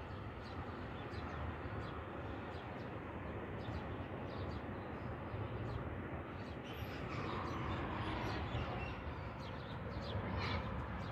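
Street ambience: small birds chirping over and over above a steady low hum of traffic, which swells briefly about seven seconds in.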